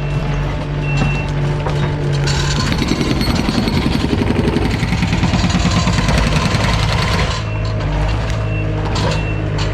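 Heavy diesel machinery running with a steady engine drone, with rapid rattling and pounding through the middle and short high beeps of a reversing alarm near the start and again near the end.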